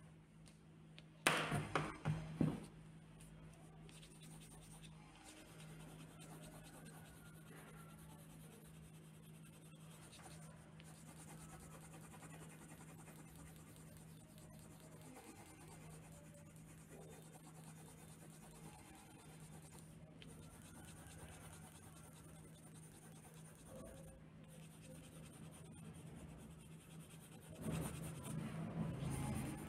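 A pen tip scratching over paper, drawing and shading, faint and continuous, over a steady low hum. There is a brief louder clatter about a second in, and louder noise comes in near the end.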